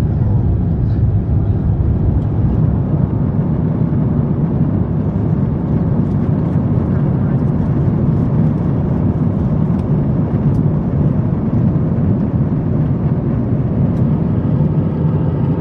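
Steady low drone of an Airbus A350-900 in flight, heard inside the economy cabin: its Rolls-Royce Trent XWB engines and the rush of air over the fuselage.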